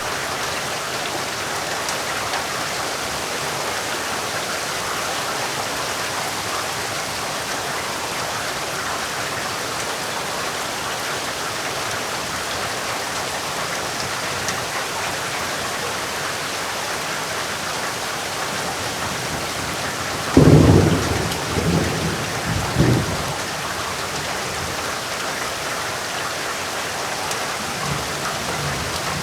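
Heavy rain falling steadily. About two-thirds of the way through, a rumble of thunder breaks in suddenly and rolls for a couple of seconds in several swells.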